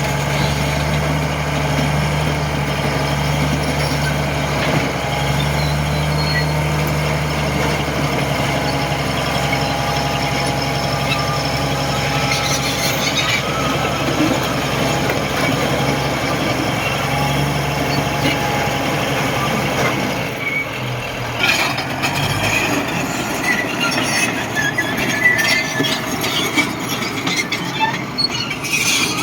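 Old Komatsu bulldozer's diesel engine running steadily under load, with a high whine over it. About twenty seconds in, the engine note drops and irregular high metallic squeals and clanks come to the fore.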